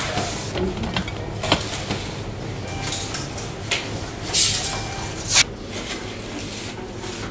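Kitchen clatter of dishes and utensils: scattered light knocks, with two short, louder noisy bursts about four and a half and five and a half seconds in.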